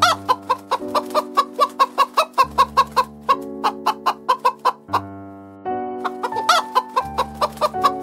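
Chickens clucking in a fast, even series of about four clucks a second, with a louder drawn-out call at the start and another about six and a half seconds in, and a short break around five seconds. Background music with sustained notes plays underneath.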